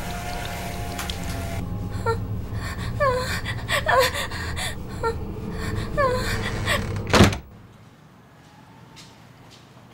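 A woman's short, falling gasps and whimpers, about once a second, over a low droning rumble of horror score. A single sharp, loud hit about seven seconds in cuts it all off, leaving quiet room tone.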